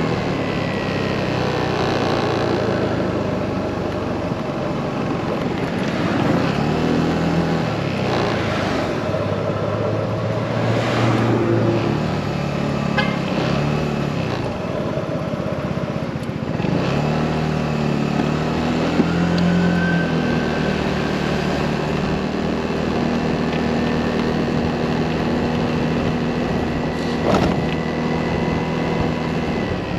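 Motorcycle engine running on the move, its pitch rising and falling several times with throttle and gear changes, over steady road and wind noise.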